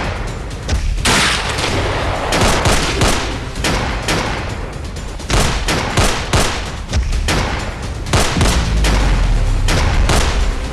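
Battle gunfire: rapid, irregular rifle shots in volleys, with a deep rumble near the end and music underneath.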